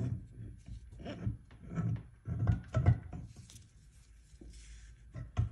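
Torque converter being pulled off and worked back onto the input shaft of a 5R55S automatic transmission by hand: a string of dull metal knocks and thuds, with some brief scraping, as it is turned and pushed. It gives none of the distinct clunks expected as a converter drops into engagement, a sign it may not be seating fully.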